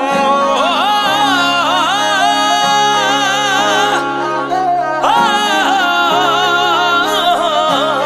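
Background music from a Punjabi song: an ornamented melody that slides and wavers between held notes, over sustained bass notes that change pitch every second or two.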